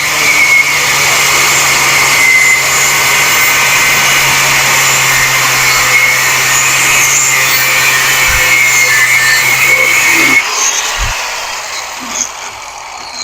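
Angle grinder with a cutoff wheel cutting through metal stock, running steadily under load, then switched off about ten seconds in and spinning down.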